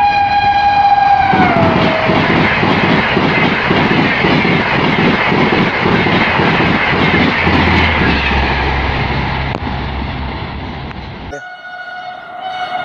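WAP-5 electric locomotive's horn sounding as the Gatimaan Express passes at about 160 km/h, its pitch dropping as it goes by, then the coaches' wheels clattering over the rail joints at about three beats a second. Near the end, after a sudden cut, another train's horn sounds steadily, from a Train-18 (Vande Bharat Express) approaching.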